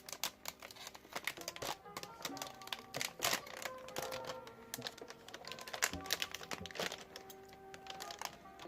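Background music with held notes, over the crinkling of a plastic bag and scattered clicks and taps as a mechanical keyboard is unwrapped and handled.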